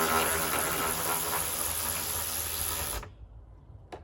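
Power tool running steadily to spin out a headlight mounting fastener, then cutting off suddenly about three seconds in.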